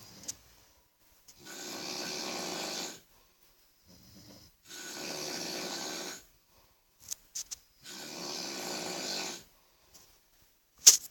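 A person snoring: three long snores, each about a second and a half, evenly spaced about three seconds apart with silence between. A couple of short clicks sound in the pause after the third snore.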